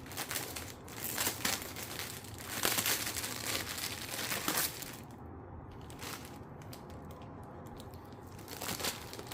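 Plastic covering being pulled off and crinkled by hand, a dense crackling for about the first five seconds, then quieter with a few scattered crinkles and clicks.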